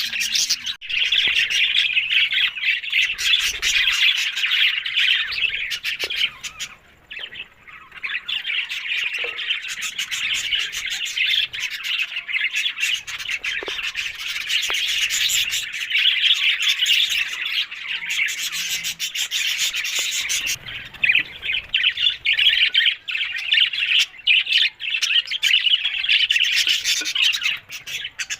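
A flock of budgerigars chattering: dense, fast warbling, chirps and squawks that run almost without a break, with a short lull about seven seconds in.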